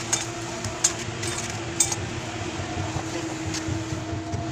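Sharp metal clinks of hand tools and fittings, three louder ones within the first two seconds and a few fainter ones after, over a steady machine hum.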